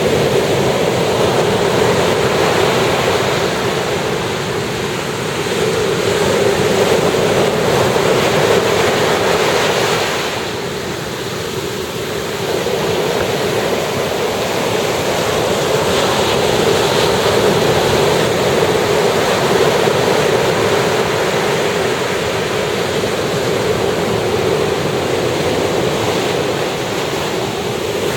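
Ocean surf breaking and washing up a beach: a steady rushing wash that swells and eases with each set of waves, briefly quieter about ten seconds in.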